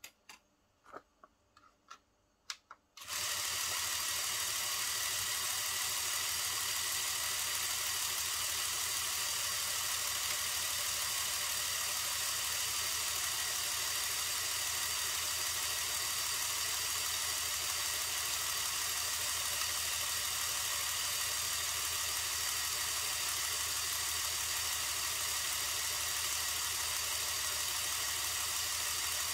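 A few sharp clicks, then about three seconds in an electric air compressor switches on abruptly and runs steadily: a constant hum with a strong airy hiss over it, pumping air through the tube into a balloon.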